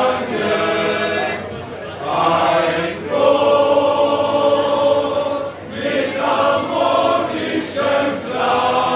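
Men's choir singing a toast song in German, several voices in harmony. It is sung in phrases of long held chords with short breaks between them.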